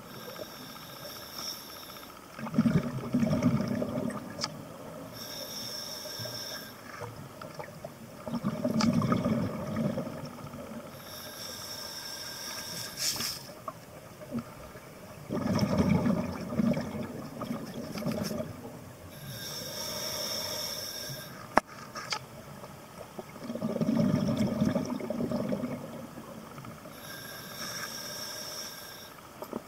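Scuba diver breathing through a regulator underwater: a hissing inhale, then a low rumbling gush of exhaled bubbles, repeating every six to eight seconds. A single sharp click sounds a little past the middle.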